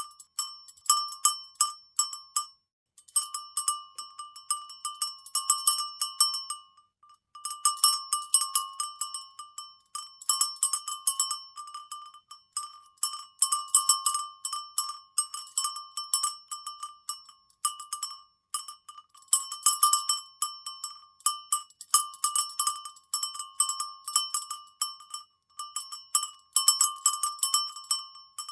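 Cowbells shaken and rattled, clanking in quick irregular clusters of strikes, each strike ringing briefly at the same bright metallic pitch. The clanking pauses briefly about three seconds in and again about seven seconds in.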